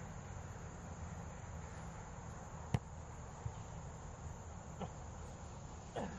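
Steady open-air background of insects chirping over a low rumble, with one sharp click a little under three seconds in and two fainter clicks after it.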